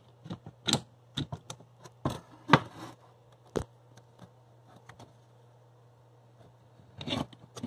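Plastic blower-motor housing and squirrel-cage fan wheel being handled and pulled apart: a run of sharp clicks and knocks in the first few seconds, a quiet stretch, then a few more near the end, over a steady low hum.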